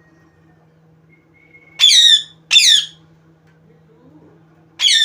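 A pet parrot squawking: two loud, harsh calls in quick succession about two seconds in, and a third near the end.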